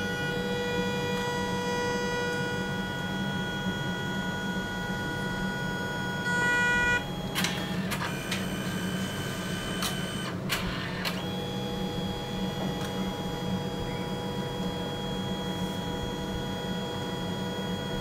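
Canon Selphy compact photo printer printing a photo: a steady motor whine, louder for a moment about six seconds in, with a few sharp clicks around eight and ten seconds in as the mechanism shifts, then the whine again while the print feeds out.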